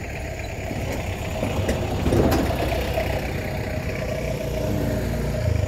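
A motor vehicle's engine running steadily: a low rumble with a steady tone that comes in about two seconds in.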